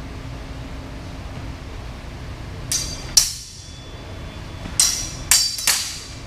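Steel sabre blades clashing in a sparring exchange, each strike ringing briefly. Two strikes come about three seconds in, the second the loudest, then three more in quick succession near the end.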